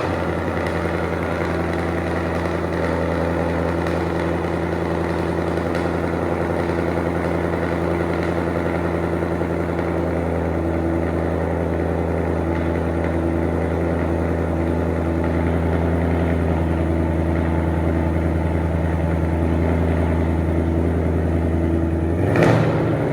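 Ford Mustang GT's Coyote 5.0 V8 idling steadily and loudly through catless Kooks long-tube headers, an H-pipe and the factory active-valve exhaust, with a short louder blip near the end.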